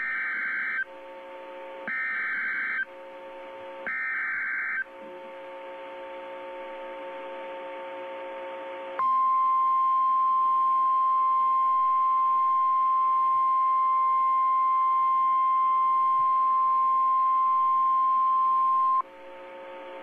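NOAA Weather Radio Emergency Alert System signal heard through a radio: three short bursts of SAME digital header data, each just under a second and two seconds apart, then a few seconds of low hum, then the steady 1050 Hz warning alarm tone held for about ten seconds. It announces a severe thunderstorm warning.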